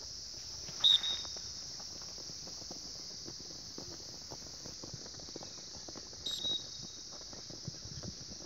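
Steady high insect drone over faint scattered taps of running footsteps on grass, broken by two brief loud sharp sounds, about a second in and about six seconds in.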